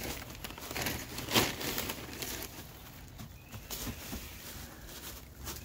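Handfuls of dry pine wood shavings rustling as they are scooped up by hand and spread, with a louder crackle about a second and a half in.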